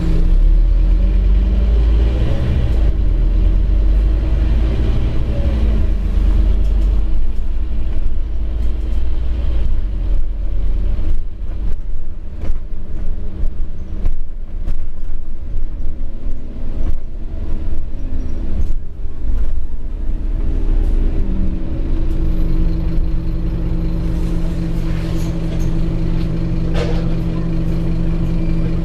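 Scania OmniCity double-decker bus heard from inside the passenger saloon while under way: a steady diesel engine drone and road rumble. In the middle it is broken by irregular rattles and knocks from the bodywork. Near the end the engine note shifts, then settles steady again.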